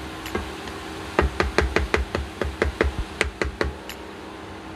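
Plastic spatula knocking against a nonstick frying pan while stirring food in it: about a dozen quick clacks, four or five a second, for a couple of seconds in the middle, over a low steady hum.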